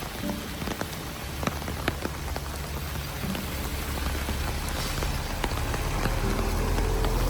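Steady rain falling, with scattered sharp drop hits on nearby surfaces, growing slightly louder. Faint music fades in near the end.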